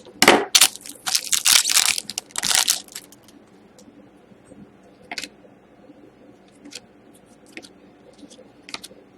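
Wrapper of a hockey trading-card pack crinkled and torn open in a run of loud crackling bursts over the first three seconds, then faint scattered clicks as the cards are handled.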